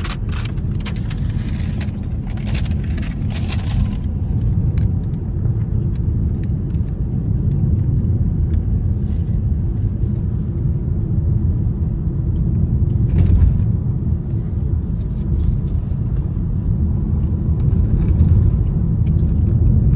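Steady low rumble of road and engine noise inside a moving car's cabin, with a few clicks and rattles in the first few seconds.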